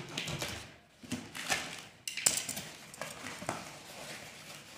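Packing tape being ripped off a cardboard box in a few rasping pulls, then the cardboard flaps being pulled open with several sharp clicks and crinkles.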